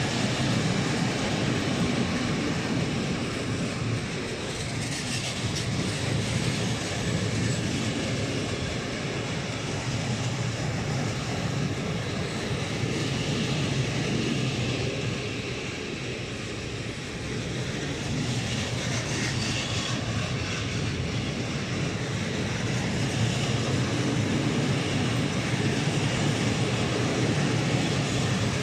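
A long train of PKP Cargo open freight wagons (Eaos coal gondolas) rolling past at close range. The steel wheels on the rails give a steady rumble that swells and fades slightly as the wagons go by, with a few brief sharper clicks.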